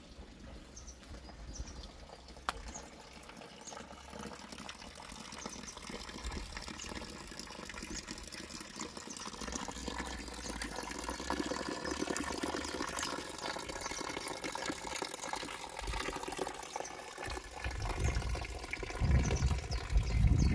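A thin stream of water from a stone spring fountain's pipe spout splashing into its stone trough, growing steadily louder. Low rumbles come in near the end and are the loudest sound.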